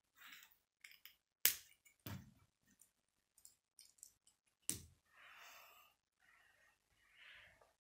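Plastic Lego bricks being handled and pressed together: a few sharp clicking snaps, the loudest about a second and a half in and near five seconds in, among small plastic ticks, with a couple of soft hissing stretches in the second half.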